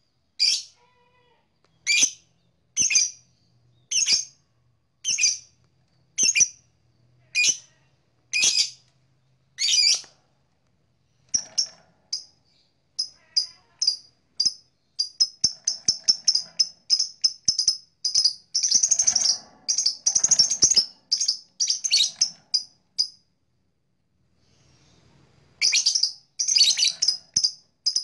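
Blue black-masked lovebird calling: shrill single calls about once a second for the first ten seconds, then long runs of rapid short chirps that grow denser, breaking off for about two seconds near the end before starting again.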